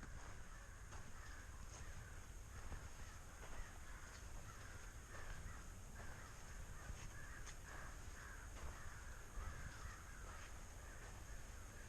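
Crows cawing over and over, faint, with a low rumble underneath.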